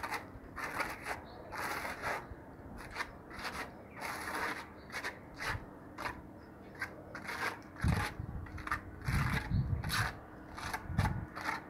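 Steel trowel scraping and spreading wet cement render over a concrete slab edge, in short, irregular strokes about two a second. A few low thumps come in the second half.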